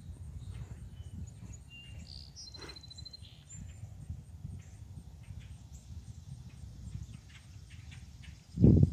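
Wild songbirds chirping sporadically, with one short rapid trill about two and a half seconds in, over a steady low rumble. A brief loud low thump comes near the end.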